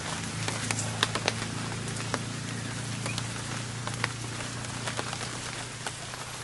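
Light rain: a steady patter with scattered sharp drip ticks, over a low steady hum.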